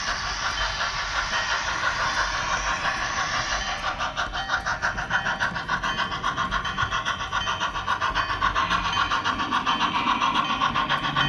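HO-scale model train running on its track, heard from a camera riding on one of its cars: a steady whirring clatter of small wheels and running gear. From about four seconds in, a rapid, even clicking rhythm joins it.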